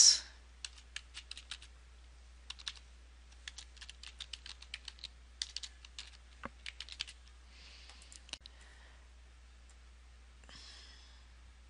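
Computer keyboard being typed on in short bursts of quick key clicks, stopping about seven seconds in.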